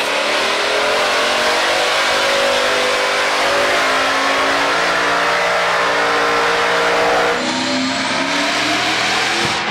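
Diesel pickup engine running flat out on a chassis dyno as it fails and bursts into flames: a loud, steady high-rev roar whose pitch wavers slightly. About seven seconds in, the engine note changes.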